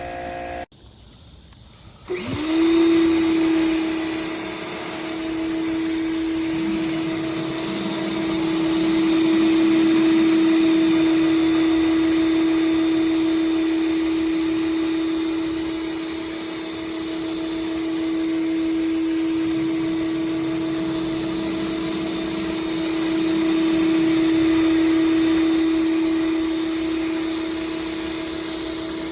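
Electric pressure washer motor starting about two seconds in, its whine climbing quickly to a steady pitch, then running continuously; the level swells and eases slowly.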